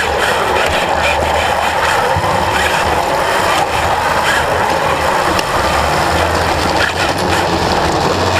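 FRC competition robot's drive motors and gearboxes running under the on-board camera, a loud mechanical whir over a steady noisy din, with a low hum that starts and stops several times as the robot drives and turns.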